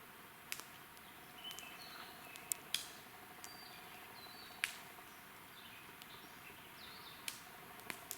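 Wood campfire crackling quietly, with a few sharp pops at irregular intervals over a steady faint hiss. Short high chirping notes from a bird sound in the first half.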